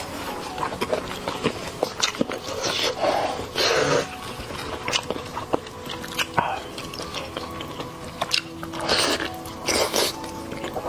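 Close-miked eating of a spiced sheep's head: wet clicks and smacks of chewing, and of meat pulled apart by gloved hands. A few louder sucking noises come about three seconds in and again near the end, as meat is sucked off the bone.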